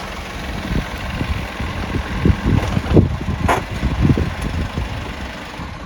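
Strong wind buffeting the microphone: a steady rushing hiss with irregular, gusty low rumbles.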